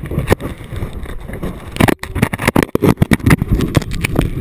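Dense, irregular knocking and scraping on a body-worn action camera as it bumps and rubs against a rope climbing net, over a steady low rumble.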